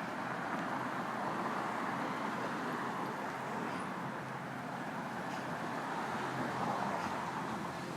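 City street ambience: a steady wash of traffic noise from passing cars.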